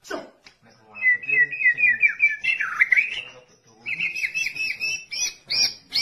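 White-rumped shama (murai batu) singing: a fast run of repeated whistled notes from about a second in, then a second, higher phrase of quick notes near the end.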